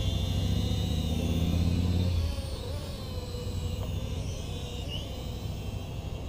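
Eachine E58 mini quadcopter flying, its propellers giving a thin, wavering high whine. Over it, a low engine hum, the loudest sound, stops about two seconds in.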